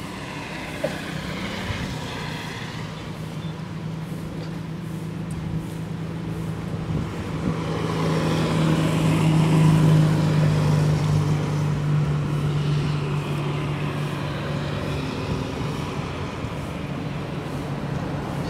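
A motor vehicle's engine hum, low and steady, growing louder to a peak about halfway through and then fading as it passes.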